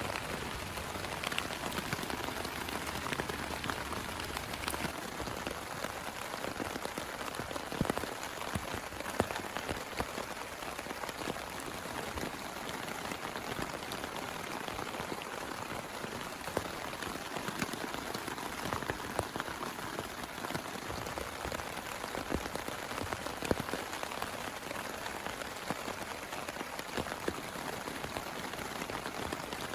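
Heavy rain falling steadily, with many separate drops striking close by as sharp little ticks over the even wash of the downpour.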